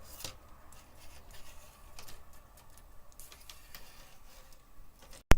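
Faint, scattered light clicks and taps over quiet room tone, with one sharp, loud click near the end.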